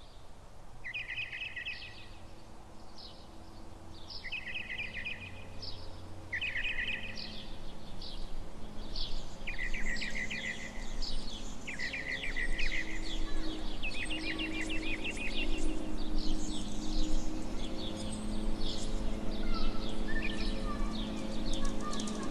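Songbirds calling, a few short repeated phrases at first and then many overlapping calls, with a low steady hum coming in underneath after a few seconds.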